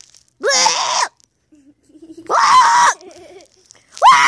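Child screaming in play: three short, loud, high-pitched screams, roughly one every one and a half to two seconds.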